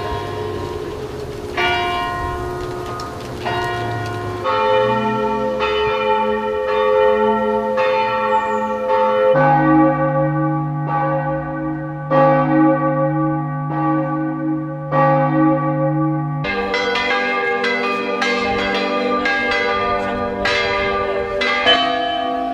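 Church bells ringing: a steady run of overlapping strikes, each ringing on and fading. For several seconds in the middle a deeper, sustained bell hum sounds under the strikes.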